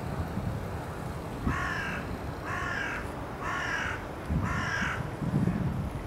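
Carrion crow cawing: four harsh caws about a second apart, then two fainter caws near the end.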